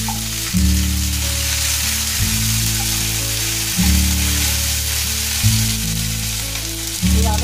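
Ginger paste sizzling in hot mustard oil with cumin seeds and bay leaves, stirred with a wooden spatula. Under it, background music with low sustained chords that change about every second and a half.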